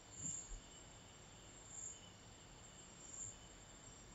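Near silence: faint room tone with a cricket chirping softly about every second and a half.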